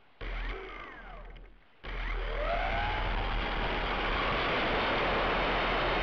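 Electric motor and propeller of a Slow Stick RC plane: a short whine that cuts off, then the motor throttles up with a rising whine and holds at high power for takeoff. Heard from the camera strapped to the plane, under a steady hiss.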